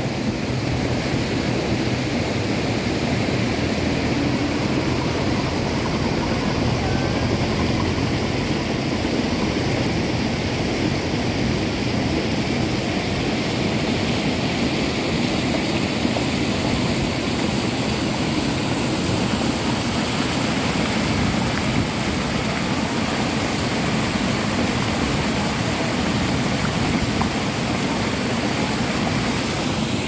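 Steady rushing roar of a mountain stream and waterfall, loud and even with no breaks.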